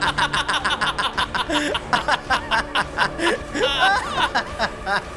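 Two men laughing hard together in a rapid run of pulses, several a second, over low, steady soundtrack music.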